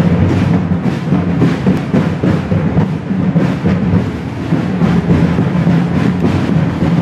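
Procession drums being beaten, a dense run of strokes close together.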